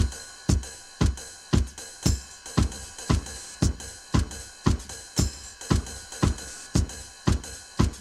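Saturated, lo-fi electronic dance track: a kick drum on every beat, a little under two a second, each kick dropping in pitch, with hi-hats and a steady hiss over it.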